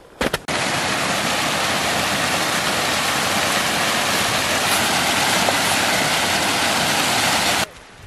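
Small rocky stream cascading over rocks: a steady, loud rush of water that starts abruptly about half a second in and cuts off suddenly near the end.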